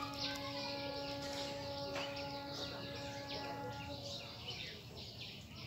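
Birds chirping in many short, high notes, over a long, steady held note that stops about four seconds in.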